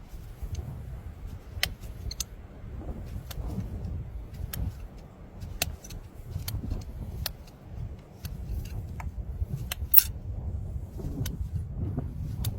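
Farrier's hoof-trimming tools working on a horse's hoof: irregular scraping with scattered sharp clicks and snips over a low rumble, the loudest click about ten seconds in.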